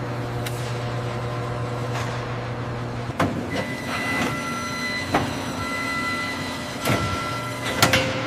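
Hangar machinery running with a steady low hum and motor whine, with several sharp metallic clanks, the loudest near the end.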